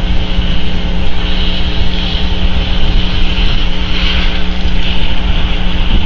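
Wind buffeting the outdoor microphone in a low, uneven rumble, with a constant hiss that swells a few times and a steady electrical hum underneath.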